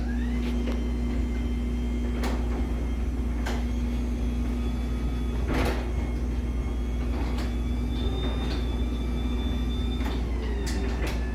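LiftMaster 84505R belt-drive garage door opener running a door up: a steady motor hum with a whine that rises in pitch as it gets going and falls as it slows near the end, and a few knocks from the loose door panels rattling in the track.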